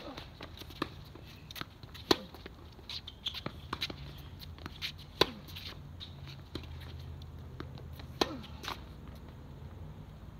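Tennis rally: four loud, sharp racket-on-ball strikes two to three seconds apart, with quieter ball bounces and shoe taps on the court between them, over a steady low hum.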